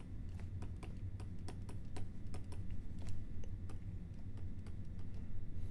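Stylus tapping and scraping on a tablet or pen-display surface during handwriting: many light, irregular clicks, over a steady low hum.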